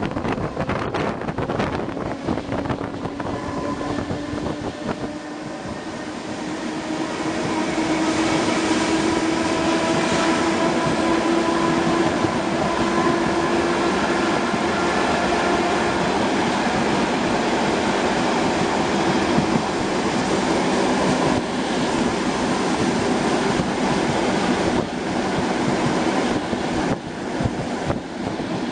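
ER2R electric multiple unit running at speed, heard from inside the carriage: a steady rumble of wheels on rails, with a whine that rises in pitch and grows louder over the first several seconds, then holds steady. A few sharp clicks from the track come near the start and again near the end.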